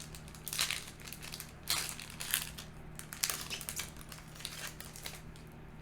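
Foil booster pack wrapper crinkling as it is handled, in irregular short rustles.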